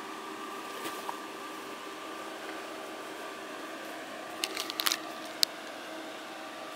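Jeep Cherokee SUV engine running steadily at crawling speed as it eases down a rocky trail, a smooth hum with several held tones. A brief cluster of clicks and knocks comes about four and a half seconds in, followed by one sharp click.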